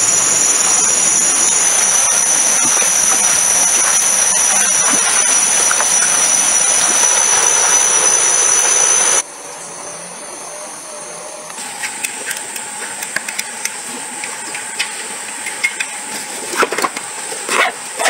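Stream water rushing, with a steady high-pitched insect drone over it. About nine seconds in it cuts off suddenly to quieter forest ambience with the insect drone. Near the end come light rustling clicks and scrapes as a backpack is handled.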